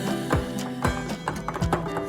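Background pop music with a steady beat, about two drum hits a second.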